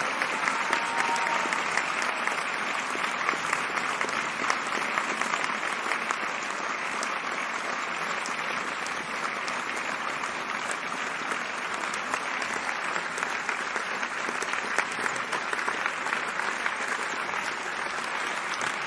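Crowd applause: many people clapping steadily, without a break.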